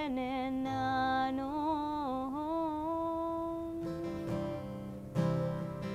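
A woman's voice holds and bends a wordless sung note with vibrato over acoustic guitar. About four seconds in the voice drops away, leaving the acoustic guitar strummed on its own.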